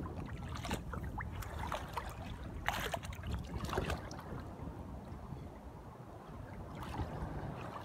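Sea water lapping and sloshing around a phone held at the surface, with wind buffeting the microphone and small splashes now and then.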